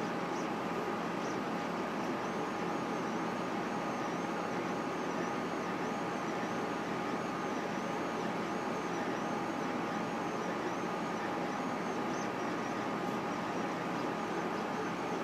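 Solidoodle 3 3D printer running a print: its stepper motors give a high whine that rises and falls over and over as the extruder head moves, over a steady mechanical hum.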